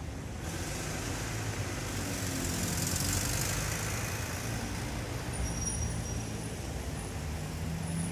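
Street traffic: road vehicles running past, one swelling to a peak about three seconds in and then fading.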